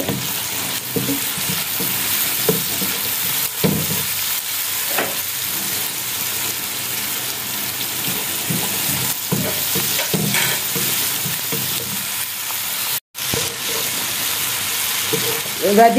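Shredded cabbage, tomato and onion sizzling in hot oil in a non-stick wok while a wooden spatula stirs and scrapes them, with scattered light knocks of the spatula against the pan. The sound cuts out for a moment about three quarters of the way through.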